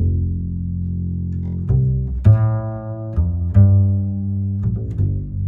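Background music of low string instruments: long bowed notes that change every second or so, with sharp plucked attacks.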